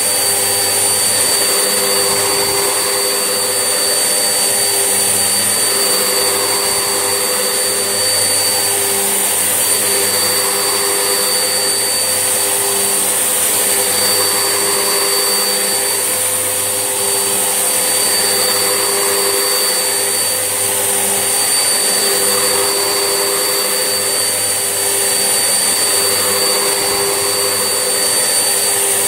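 Vax Essentials vacuum cleaner running steadily, its motor giving a constant high whine over a rushing hum. The sound swells slightly every few seconds.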